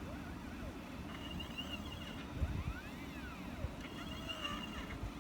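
Stepper motors of a small homemade CNC machine whining as it writes text, their tone gliding up and down with each stroke as the axes speed up and slow down, with a steady high tone switching on and off and a low rumble underneath.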